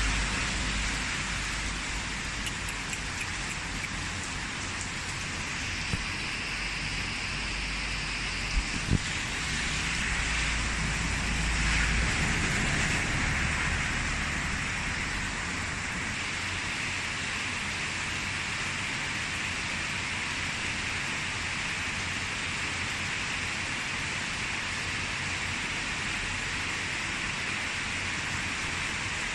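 Steady rain falling and pattering on surfaces, with a low rumble under it for the first dozen seconds and a few brief sharp knocks around six and nine seconds in.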